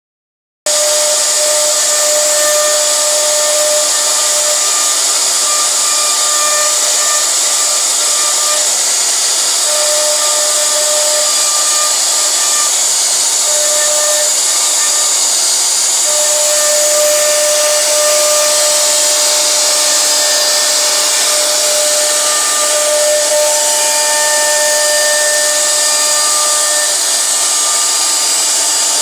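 CNC router spindle running and cutting a wooden board: a steady high hiss, with a whine whose tones fade in and out as the bit moves through the wood. It starts about half a second in.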